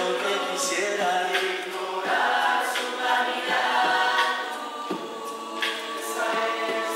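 A mixed chorus of a rondalla ensemble singing together in harmony.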